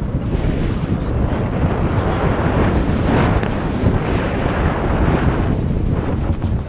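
Wind rushing over an action camera's microphone during a fast ski descent, a steady, loud buffeting rumble, with the skis running over groomed snow.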